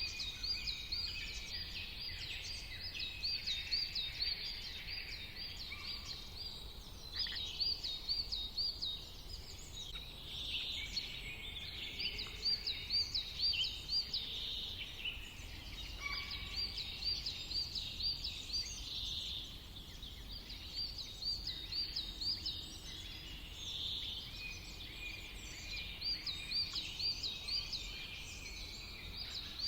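A chorus of small songbirds chirping, with one bird repeating a short phrase of quick high notes every few seconds.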